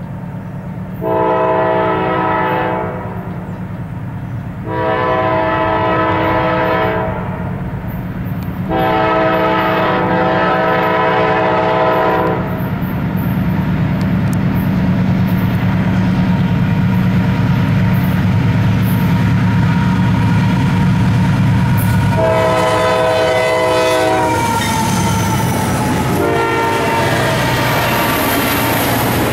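Diesel freight locomotive sounding its horn in three long blasts for a grade crossing over the steady rumble of its engines, with two more blasts later on as the train rolls past.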